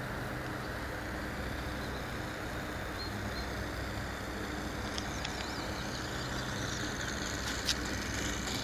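Distant model airplane engine running steadily under wind noise on the microphone, growing louder near the end as the model comes closer.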